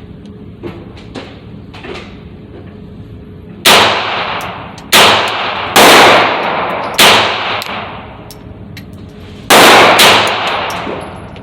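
Smith & Wesson M&P 22 firing .22 LR Aguila Super Extra rounds: about six sharp shots at an uneven pace, each ringing out briefly, preceded by a few light mechanical clicks.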